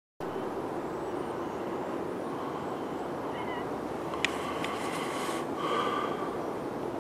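Steady outdoor rumble of a distant NSB Class 73b electric multiple unit approaching along the line, with a sharp click about four seconds in and a brief chirp just before it.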